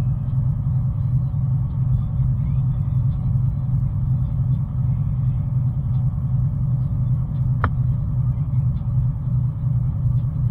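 Steady low drone of a vehicle driving at road speed, heard from inside the cab, with a single short click about seven and a half seconds in.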